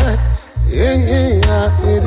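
Reggae song playing: heavy bass line, drums and a sung vocal line, with a short break in the beat about half a second in.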